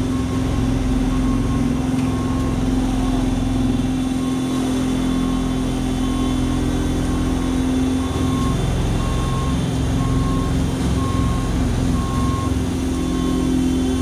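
Caterpillar AP1055F asphalt paver's diesel engine running steadily with a strong hum, while a vehicle backup alarm beeps about once a second.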